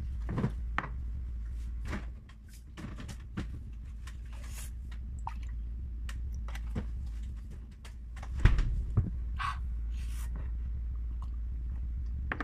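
Chewing and mouth clicks from someone eating raw onion and garlic, short and irregular, over a steady low hum, with one louder knock about eight and a half seconds in.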